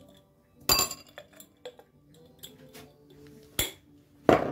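Metal spoon clinking against a small ceramic bowl of dried rosemary: three sharp clinks, the last the loudest, over faint background music.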